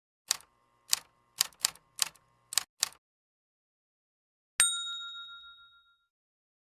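Typewriter sound effect: seven sharp keystrokes over about three seconds, then a single bell ding that rings out for about a second.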